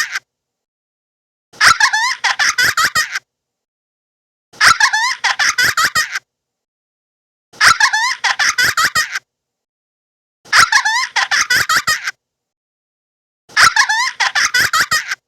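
A short, high-pitched giggling sound effect, a quick run of chirpy pulses lasting about a second and a half. It plays five times in a loop, with dead silence between each.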